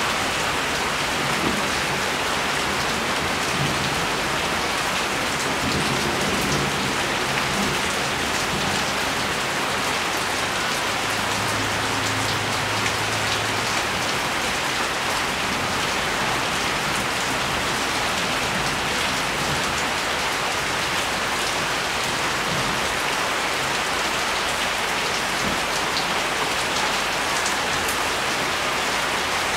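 Steady rain falling: a dense, even hiss of many drops landing, with no let-up.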